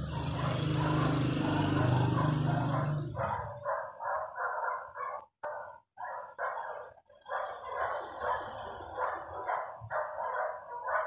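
A dog barking over and over, about three barks a second, starting a few seconds in as a low rumbling noise fades out.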